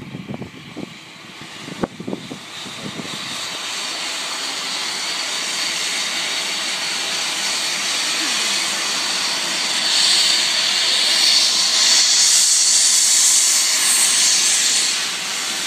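Southern Railway U class 2-6-0 steam locomotive moving off with a loud, steady hiss of steam from its open cylinder drain cocks, swelling louder about ten seconds in. A few knocks sound in the first three seconds.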